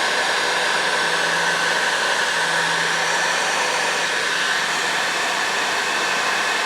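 Heat gun blowing steadily, a continuous rush of hot air with a faint whine in it, shrinking heat-shrink tubing onto plier handles.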